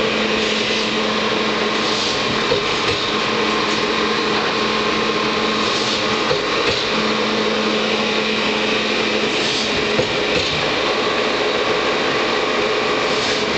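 Cevenini ET8 four-shaft log slitter running: a steady mechanical hum with several whining tones and a few light clicks.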